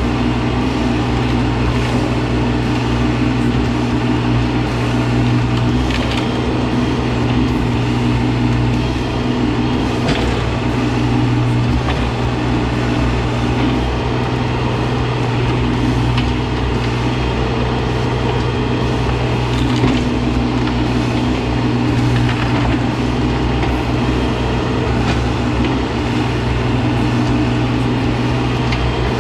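Mahindra eMax 20S sub-compact tractor's three-cylinder diesel engine running steadily under work, with a few faint knocks.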